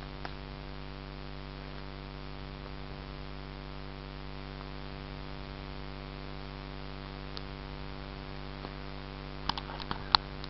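Steady electrical hum with a ladder of even tones and a light hiss, the recorder's own noise, then a quick cluster of sharp clicks about a second before the end as the camera is moved.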